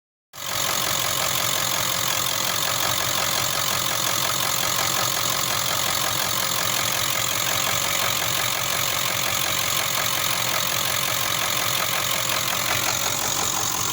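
Ford 7.3-litre V8 diesel idling steadily with a repetitive knock, a "dung dung dung" noise that the owner is trying to track down.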